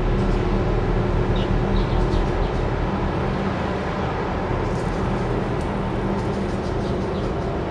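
Low, steady engine drone with a humming tone, easing off about three seconds in.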